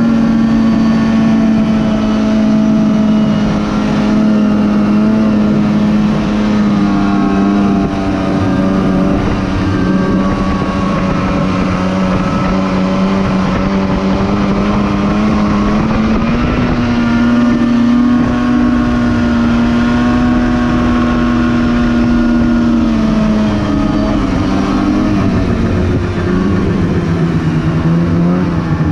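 Polaris Pro RMK 800 snowmobile's two-stroke twin engine running under way, its pitch easing down at first, climbing again about halfway through, and falling in the last few seconds as the sled slows.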